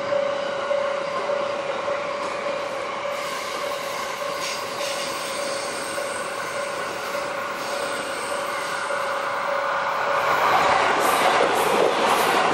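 A limited express electric train approaching on the main line, its rumble and rail noise building and growing louder over the last few seconds. A steady high tone sounds throughout.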